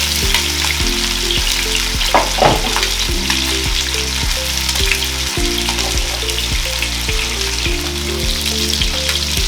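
Chicken drumsticks frying in hot oil in a pan, a steady sizzle as they brown.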